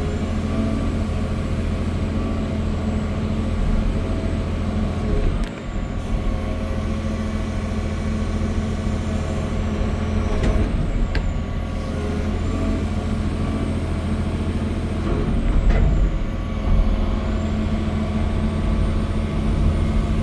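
John Deere 350D LC excavator's 9.0-litre PowerTech six-cylinder turbo diesel running steadily under the machine, with a brief dip about five seconds in.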